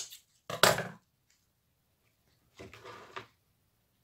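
Scissors snip through jute twine with a sharp cut at the start. A louder clatter follows about half a second in, and a softer rustle of handling comes near three seconds.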